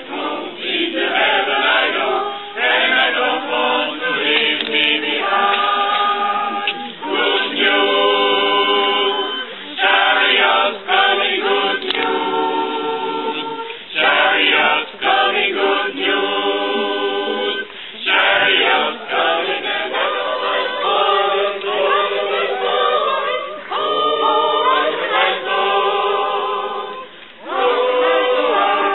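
Mixed choir of men and women singing a cappella, in phrases of held notes broken by brief pauses.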